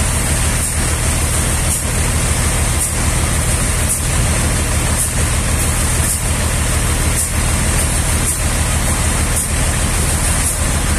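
Sawmill machinery running steadily: a constant engine hum with a regular pulse roughly once a second.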